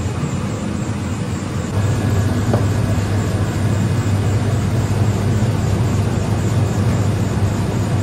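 Soft-serve ice cream machine running with a steady electric hum, which grows louder about two seconds in as soft serve is dispensed into a cup.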